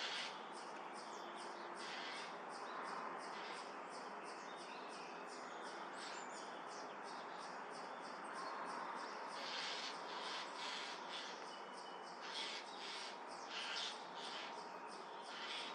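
Eurasian jay giving a rapid series of short, harsh alarm calls at a Eurasian eagle-owl, with louder clusters between about ten and fourteen seconds in, over a steady background hiss.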